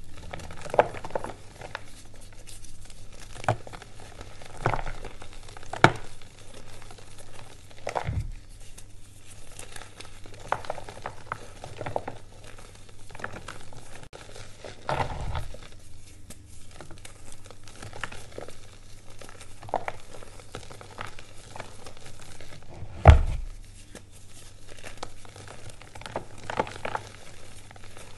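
Reformed gym chalk crushed and crumbled in the hands: irregular soft, powdery crunches and crumbling dust, one every second or two. The loudest is a deeper thump late on. A faint low hum runs underneath.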